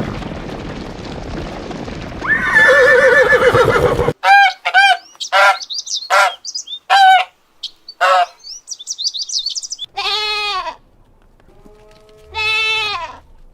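A run of farm animal calls one after another: a wavering whinny over a noisy background, then a quick series of short bird calls and high chirps, then two bleats.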